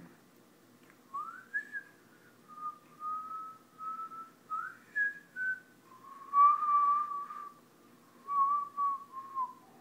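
A person whistling a slow tune: a string of held notes with slides between them, starting about a second in.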